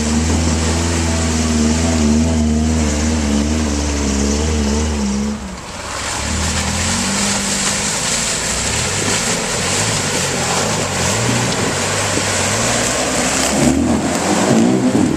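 An off-road 4x4 truck's engine running hard under load. The engine note holds steady for about five seconds, dips briefly, then carries on under a loud rushing rumble of tyres working over the rough, muddy track.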